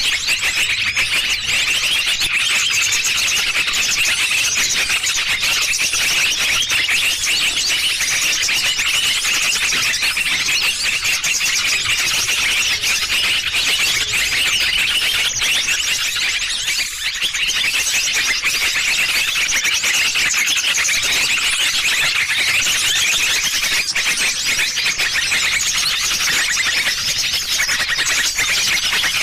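Recorded lure call for small birds: a loud, dense, unbroken chatter of high, shrill chirps, dipping briefly about seventeen seconds in.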